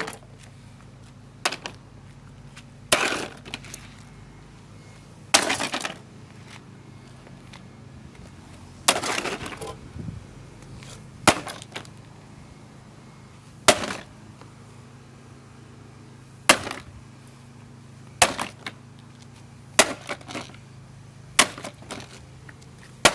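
A cheap coffee machine being smashed with a two-pound hammer: about ten hard blows a couple of seconds apart, several followed by a brief rattle of breaking pieces.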